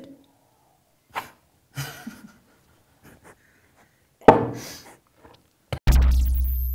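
Men coughing and gasping after downing a shot of strong liquor, in a few short separate outbursts. Near the end comes a deep boom with a high falling whine that dies away slowly.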